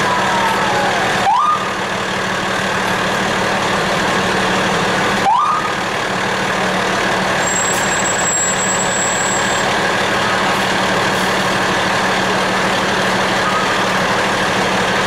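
Fire truck's engine running steadily while the truck is driven slowly. A siren winds down in the first second, followed by two short rising siren whoops about four seconds apart.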